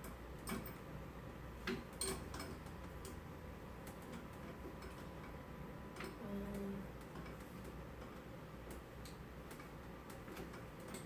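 Faint, irregular light metallic clicks and taps as a bicycle pedal is threaded by hand onto a crank arm.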